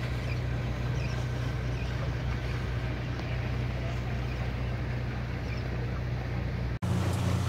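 Steady low drone of a boat's motor running under way, with a few faint high chirps over it. The sound cuts out abruptly for an instant near the end and resumes with a slightly different drone.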